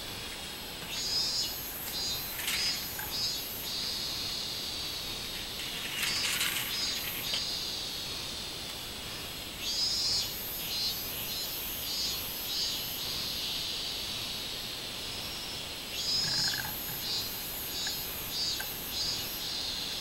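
Robust cicadas (minmin-zemi) singing in four bouts of their pulsed 'meen-meen-meen' call, about two pulses a second, over a steady high drone.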